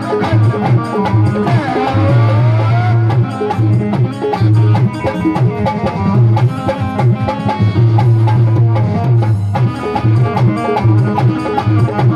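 Instrumental passage of live devotional bhajan music: a fast, steady drum rhythm under a pitched melody line, with a quick sweep of notes about two seconds in.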